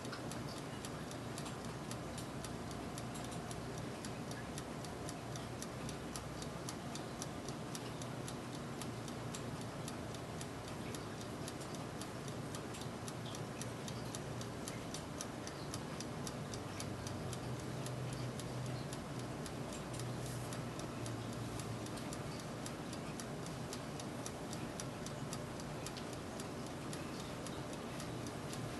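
Turbo convection oven running: a steady fan hum under rapid, even ticking, several ticks a second.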